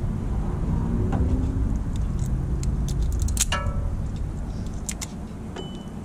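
Small metallic clicks and clinks of pliers and metal being handled while wiring is stripped, including one sharper metal clink about three and a half seconds in that rings briefly. A low steady rumble runs underneath and eases off toward the end.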